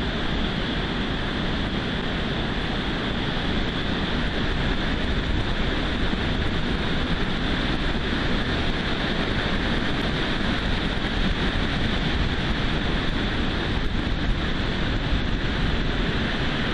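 Heavy ocean surf breaking, a steady rush of noise with no letup.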